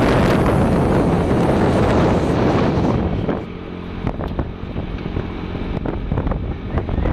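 Wind buffeting the microphone of a moving vehicle, with the vehicle's engine running underneath. The wind noise eases about three seconds in, leaving a steady engine hum and a few light rattles, then picks up again near the end.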